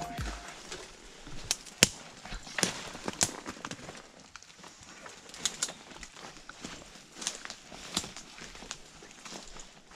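Footsteps on dry leaves and twigs in woodland: faint, irregular crackles and snaps.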